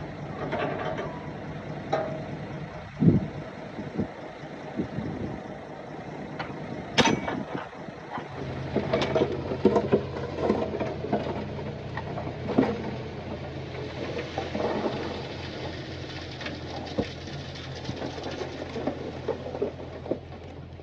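Heavy diesel construction-machine engine running, settling into a stronger steady drone about eight seconds in. Sharp knocks and clatter come over it, the loudest two near the three- and seven-second marks and a busy run of them just after the drone sets in.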